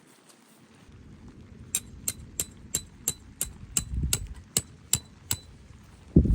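A quick run of about a dozen sharp metallic strikes, roughly three a second, each with a brief ring, over a low rumble, then one heavy low thump near the end.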